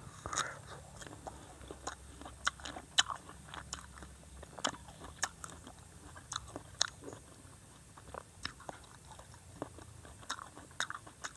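A person biting into and chewing a crisp macopa (wax apple) close to the microphone: irregular short crunches and mouth clicks.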